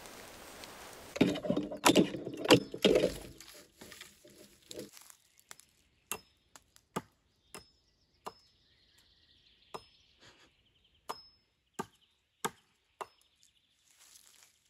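Hatchet chopping wood. A quick run of heavy blows comes about a second in and is the loudest part, then about a dozen single sharp chops at uneven intervals into a birch pole.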